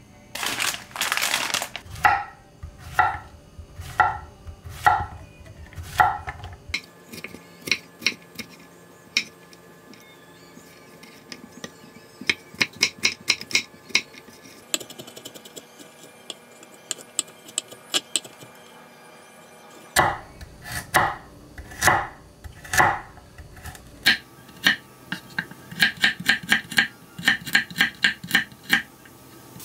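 Chef's knife chopping zucchini and then carrots on a wooden cutting board, with a brief burst of noise about a second in. It starts with single heavy strokes about once a second, moves to lighter, quicker taps, and ends in fast runs of chopping at four or five strokes a second.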